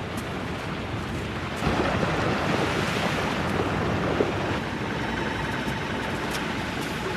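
Chocolate waterfall rushing and splashing into the chocolate river, a steady water noise that grows louder about two seconds in. A few faint steady tones come in over it near the end.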